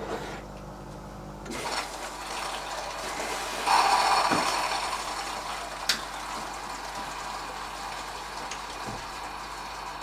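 Beko DWD5410W dishwasher at the start of its wash cycle: a steady motor hum cuts off about a second and a half in, then water rushes into the machine. The rush is loudest at about four seconds, then settles, with a single sharp click near six seconds.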